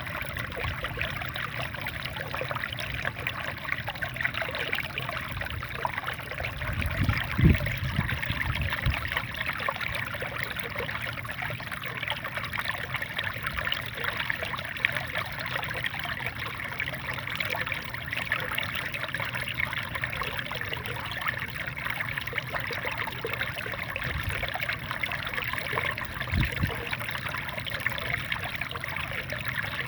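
Water from a small rice-field waterfall splashing and trickling steadily. A brief low thump sounds about a quarter of the way in, and a weaker one near the end.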